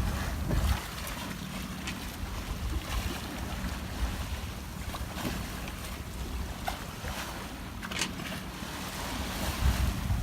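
Wind buffeting the microphone over water washing against a sailing yacht's hull as she moves, gusting louder near the start and again near the end, with a steady low hum beneath. A sharp click comes about eight seconds in.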